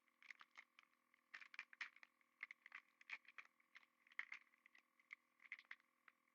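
Faint, irregular crinkling and clicking of a trading-card pack wrapper and cards being handled and opened, denser in the middle.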